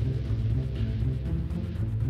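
Background music with a strong, heavy bass line.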